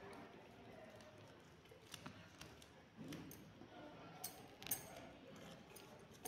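Faint rustling of fabric scraps handled and pushed into a small cloth piece, with a few light clicks.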